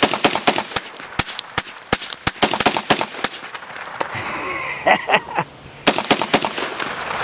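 Rapid strings of gunshots, several a second. A pause of about two seconds near the middle is followed by a second string of shots.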